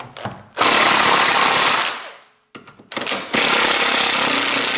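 Electric impact driver hammering on a bolt in two long bursts, the first starting about half a second in and the second about three seconds later, with a few short stutters of the tool between.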